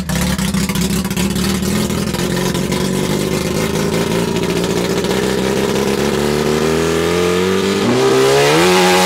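Naturally aspirated Mazda 13B two-rotor rotary engine in a Suzuki Carry kei truck, run hard while the truck slides through a drift. The engine note holds fairly steady, then climbs and swings up and down in pitch near the end as the throttle is worked.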